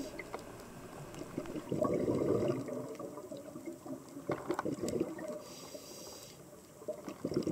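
Underwater sound of a scuba diver's exhaled bubbles rising from the regulator in a burst lasting about a second, around two seconds in, with a few faint clicks later on.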